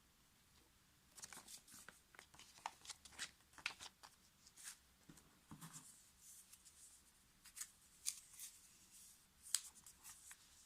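Faint, irregular light clicks, taps and rustles of hands handling small objects, starting about a second in.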